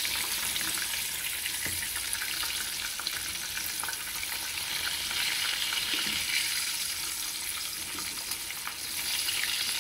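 Breaded chicken breast pieces sizzling steadily as they fry in plenty of hot oil in a frying pan, being turned over with metal tongs.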